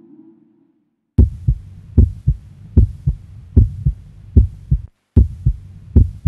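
Low heartbeat-like double thumps in the soundtrack, one 'lub-dub' pair about every 0.8 seconds, starting about a second in after a rising synth tone fades away; they cut out for a moment near the end, then resume.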